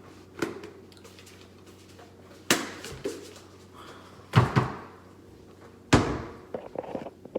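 Five or so sharp knocks and clatters, spread out with quiet gaps between them, each trailing off with a short ring.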